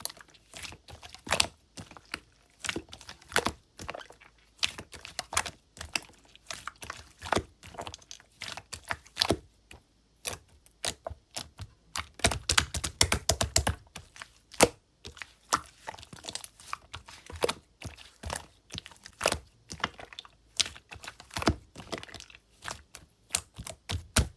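A run of sharp clicks and taps at an uneven pace, a few a second, with a quick dense flurry of them about twelve seconds in.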